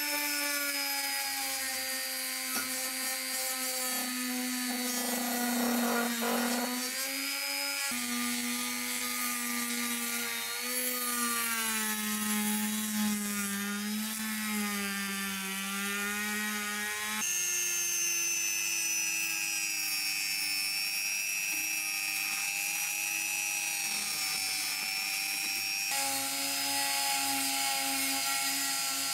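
Rotary tool spinning a small abrasive sanding drum against the rusty cast-metal handle of an old hacksaw frame, a steady high whine with a grinding rub. Its pitch wavers and dips as the drum is pressed into the metal, and jumps abruptly a few times.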